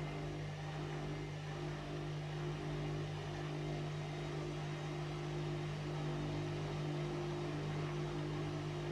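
Washing machine running, its motor giving a steady hum with an even low tone and a higher whine above it.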